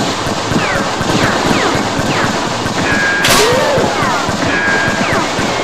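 Rapid, continuous gunfire, with repeated falling-pitch whines like ricochets and a sharper crack about three seconds in.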